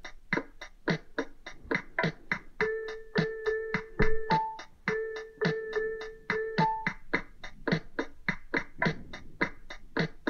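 Background music with a steady beat of about four strokes a second. From about two and a half seconds in until about seven seconds, held electric-keyboard notes play over it.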